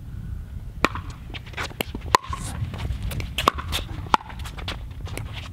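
Pickleball rally: paddles striking a plastic pickleball with sharp, hollow pops, about ten in quick succession, the loudest about two seconds in. Shoes scuffing on the hard court and a steady low rumble lie underneath.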